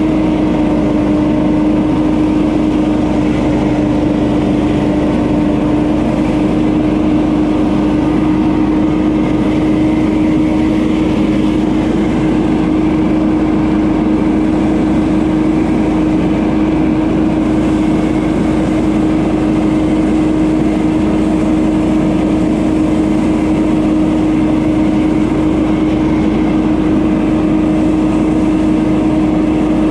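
Gas-powered leaf blower running steadily, its engine and fan holding one constant pitch with no change in speed.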